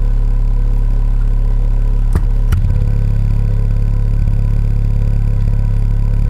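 Steady low bass tone from the repaired Buttkicker BKA1000-4A amplifier's output, played during a bench test while its filter cutoff knob is turned. Two short clicks come about two seconds in.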